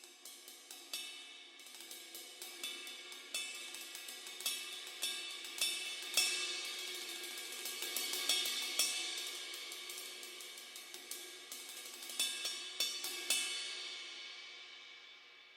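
Turco Neuwied series B20 bronze cymbals played in a run of quick strikes that build into a dense shimmering wash. The last hits come about 13 seconds in, then the cymbals ring out and fade.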